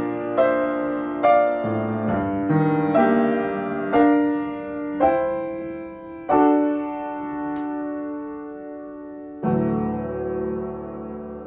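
Slow solo piano passage, single notes and chords struck at widening intervals and dying away, ending on a chord struck about three-quarters of the way through and left to ring and fade.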